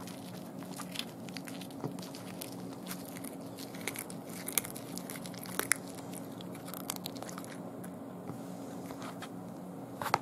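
Cat crunching and chewing a raw day-old chick, its small bones giving irregular crackly snaps, the loudest a little past the middle. A sharp tap comes near the end.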